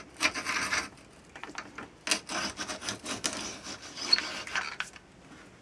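Twist drill bit boring into a wooden tool handle: a scratchy cutting and rubbing sound with small clicks, coming in two spells with a short pause about a second in.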